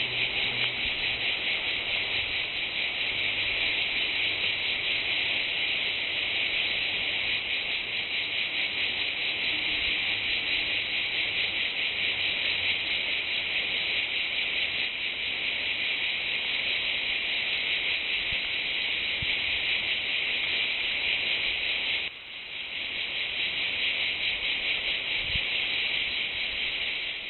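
Chorus of large, cockroach-sized singing insects calling in unison: a dense, steady, high buzzing drone. It briefly drops off about 22 seconds in and swells back within a second.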